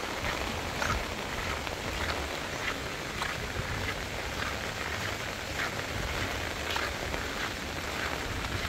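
Steady rain falling on a wet paved road and roadside vegetation. Short splashes recur about every half second, at a walking pace, like footsteps on the wet road.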